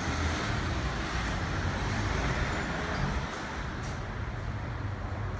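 Steady road traffic noise, a low rumble under a broad hiss.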